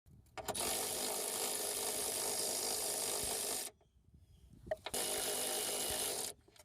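Cordless impact wrench run in two bursts, about three seconds and then about a second and a half, each starting and stopping sharply, with a single click between them, as it spins off suspension nuts.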